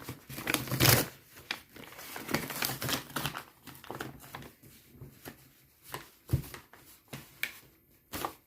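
Packaging being handled: irregular rustling and crinkling of plastic and paper wrapping, with scattered clicks and taps. The loudest rustle comes about a second in, and a sharp click comes a little after six seconds.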